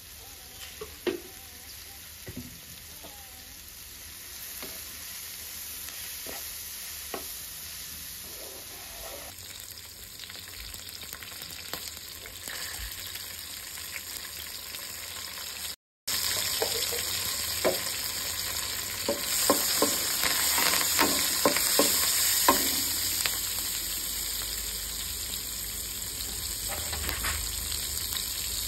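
Shredded cabbage and green peas sizzling in oil in a nonstick kadai while being stirred, with scattered short clicks and scrapes of the spatula against the pan. After a brief break about halfway through, the sizzle is louder.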